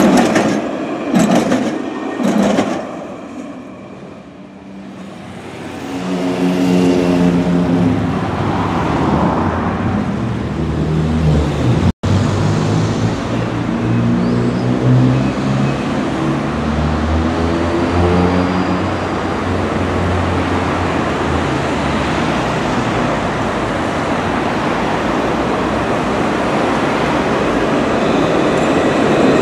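Alstom Citadis 302 trams on a city street: one passes close at first with a loud wheel-and-body rush, then the electric traction drives hum in pitched tones that rise and fall in steps as trams move off and come in, over steady street noise.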